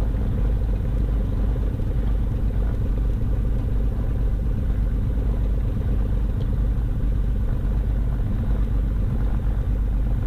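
Cessna 310's twin piston engines running at low taxi power, a steady low drone heard from inside the cockpit.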